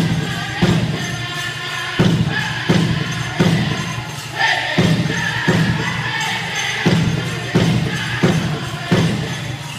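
Pow-wow drum group singing a Chicken dance song in high voices over a big hand drum struck in a steady beat, about three strokes every two seconds, with jingling from the dancers' bells. The drumming stops near the end.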